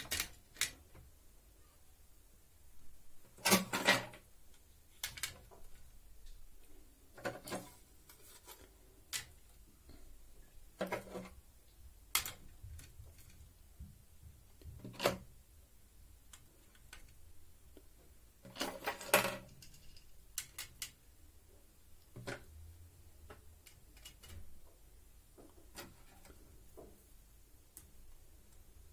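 Scrap circuit boards being laid onto a stack on a digital scale and shifted into place: scattered clacks and rattles of board on board. There are two louder clatters, one a few seconds in and one a little past the middle.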